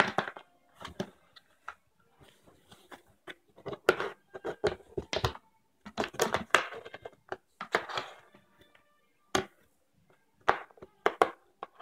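A cat scrabbling and batting at a cardboard box from inside it: irregular scratches, rustles and knocks on the cardboard in clusters, with a few single sharp knocks near the end.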